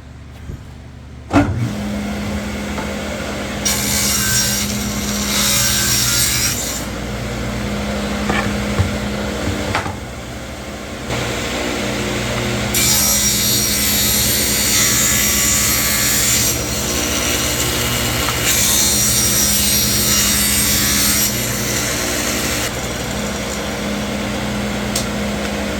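Electric power saw started about a second in and running steadily, cutting a cedar board in three long, louder passes.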